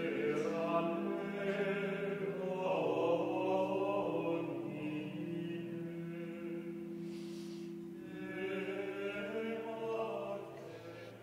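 Gregorian chant: low voices singing together in long held notes, phrase after phrase, fading away near the end.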